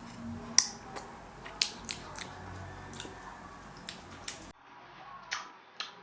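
Someone eating a mouthful of thick, sticky cola syrup boiled down to a caramel: irregular sharp smacking clicks of chewing sticky sugar, about ten in all. The faint background cuts off abruptly about four and a half seconds in, and a few quieter clicks follow.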